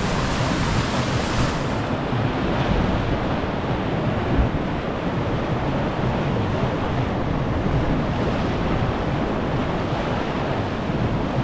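Whitewater rapids of a mountain river rushing and churning around a sweep boat, a steady, unbroken noise of water, with wind buffeting the microphone.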